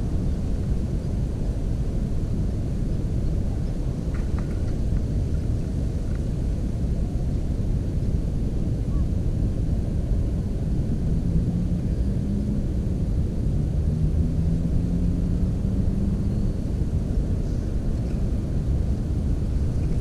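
Steady low rumble, with the drone of a distant engine rising slightly in pitch from about eleven to sixteen seconds in.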